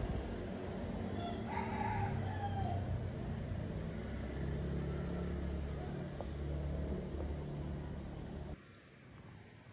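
A rooster crows once, about a second and a half in, over a steady low rumble. The background drops away suddenly near the end.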